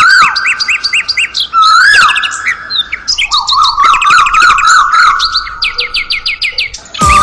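Loud songbird chirping: quick repeated chirps, trills and whistled notes. Music comes in near the end.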